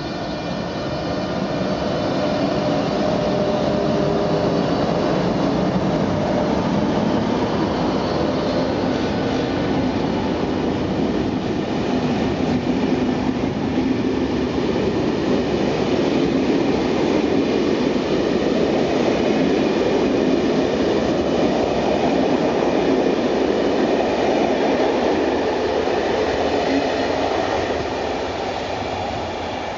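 SNCF BB 26000 electric locomotive hauling a loco-hauled TER train of coaches past the platform: a steady rumble of wheels on rail that swells about a second in and holds, then eases near the end. A faint whine of several high tones is heard at the start.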